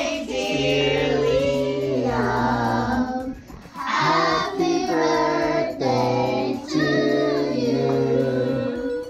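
Several voices singing a song together in held, sustained notes, with a brief break about three and a half seconds in.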